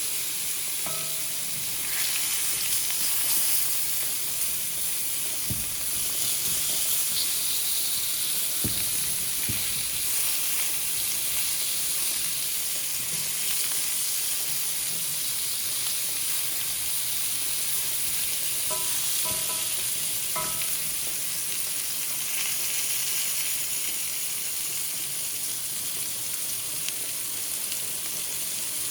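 Thick-sliced beets sizzling steadily in a frying pan over medium-high heat, with a few light knocks in the first ten seconds.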